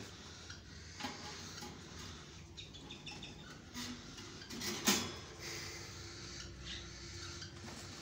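Wooden nest box being handled and opened, with scattered light clicks and knocks; the loudest knock comes about five seconds in.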